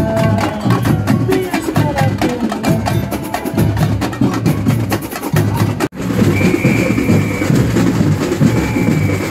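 Samba percussion band drumming: dense, fast drum strikes with sharp wood-block-like clicks. About six seconds in it cuts off abruptly and gives way to bass-heavy music with two short held high tones.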